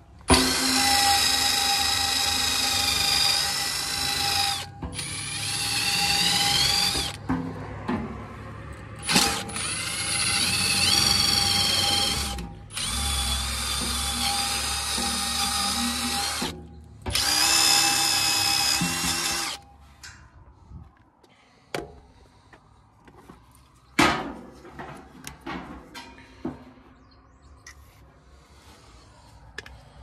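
Ridgid cordless drill spinning a wire wheel brush against the steel hub of an HVAC blower wheel, in five runs of a few seconds each with the motor whine rising and falling. It stops about twenty seconds in, followed by a few light knocks.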